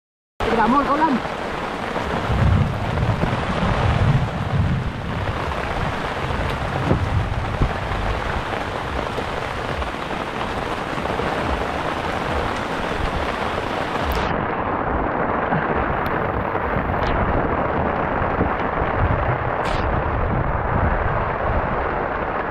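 Heavy rain pouring onto open water and a wooden outrigger boat: a dense, steady hiss, with low rumbling now and then.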